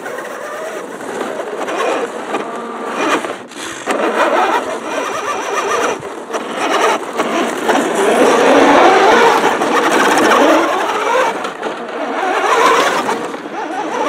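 A 1/6-scale radio-controlled Opel Blitz truck's drive motor and gears whining as it drives over packed snow. The pitch rises and falls with the throttle.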